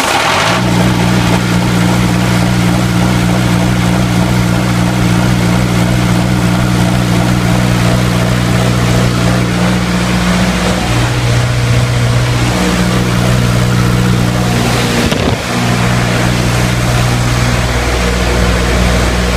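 A 30 kW four-cylinder, naturally aspirated diesel generator engine comes up to speed just after starting, then runs steadily with a constant note. There is a brief dip in level about fifteen seconds in.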